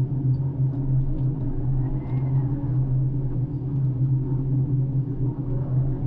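Floating crane's engine running steadily from inside the operator's cabin: a constant low drone with a strong hum. A faint whine rises and falls about two seconds in.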